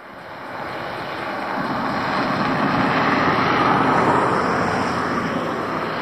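A road vehicle passing on the highway: its road noise swells over the first few seconds, is loudest around the middle and fades slowly.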